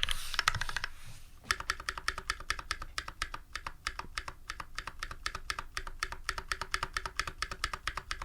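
Typing on a custom mechanical keyboard with lubed Holy Panda tactile switches in a brass plate, under GMK keycaps. A fast flurry of keystrokes, a brief pause about a second in, then a long run of evenly spaced keystrokes, several a second.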